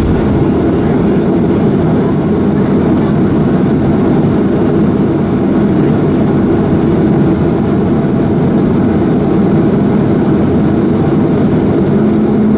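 Steady cabin rumble inside a Boeing 737-300 with its CFM56 engines running at low power as the airliner rolls on the ground after landing.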